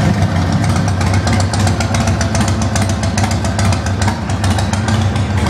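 2006 Harley-Davidson Sportster 1200 Custom's air-cooled 1200 cc V-twin idling steadily.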